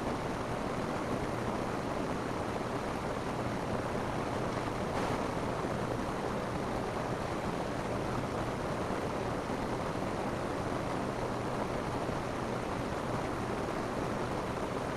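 Steady rain falling on a roof, an even unbroken hiss.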